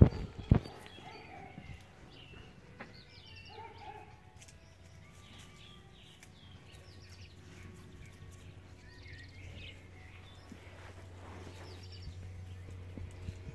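Small birds chirping in short, scattered calls, with a steady low hum underneath. Two sharp knocks right at the start.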